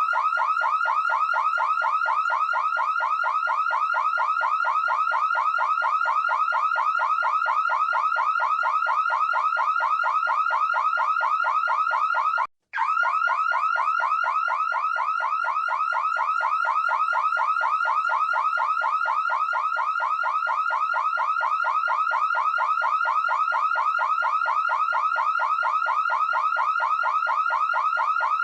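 Electronic alarm siren sounding continuously: a fast, evenly repeating rising whoop. It cuts out for a split second about halfway through, then resumes unchanged.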